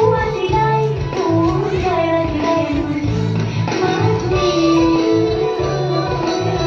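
A song playing: a high sung melody over a steady, repeating bass line and instrumental backing.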